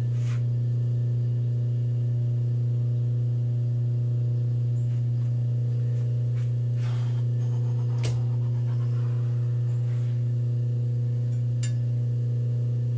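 Steady low electrical hum at a constant pitch, with a few light clicks and one short scrape as metal parts on the milling machine are handled.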